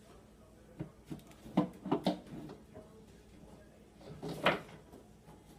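Knocks and clunks of hands and a tool working at a wall cabinet and the over-the-range microwave being mounted beneath it. There is a quick cluster of three knocks about one and a half to two seconds in, and a louder clunk with a brief scrape near four and a half seconds.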